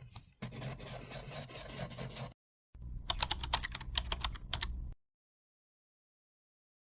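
Rapid, sharp clicking in two stretches, the second denser at about eight to ten clicks a second, each stretch cutting off abruptly.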